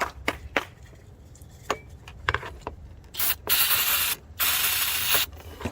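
Aerosol throttle body cleaner sprayed in two loud hissing bursts of about a second each, a little past halfway, into a carbon-fouled throttle body. Before them come a few light clicks.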